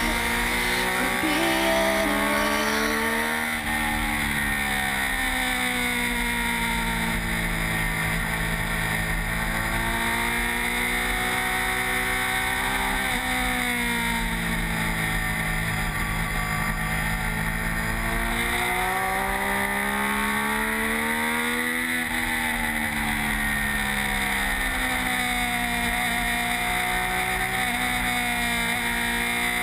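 Onboard sound of a Triumph 675 three-cylinder sport bike at race pace: the engine pitch climbs on long pulls and falls back several times as it slows for corners, under steady wind rush on the microphone.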